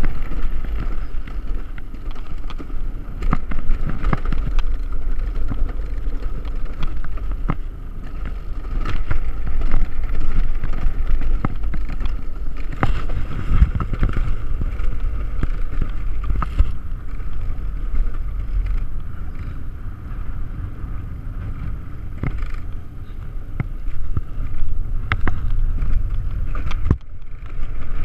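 Alpine mountain coaster sled running down its steel pipe rail: a steady rumble of the wheels on the track, with scattered sharp knocks.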